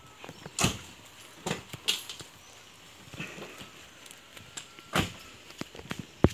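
Irregular footsteps and scuffs on dry, bare earth, a few louder steps spaced unevenly, with some handling noise from the phone.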